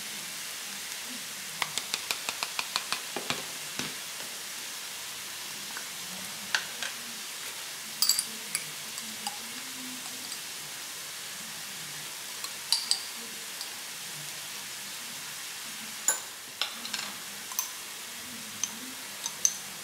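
A metal spoon clinking and scraping against a small glass bowl and jars while thick sauce pastes are scooped out, with a quick run of about eight light taps near the start and single sharp clinks later on, over a steady hiss.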